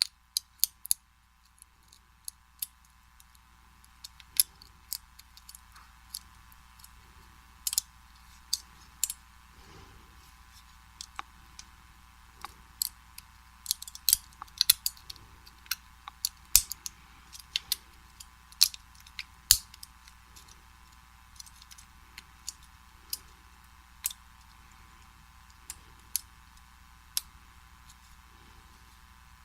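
Lock pick and tension tool working in the keyway of a vintage Slaymaker Super padlock: small metallic clicks and scrapes at an irregular pace, some sharper than others.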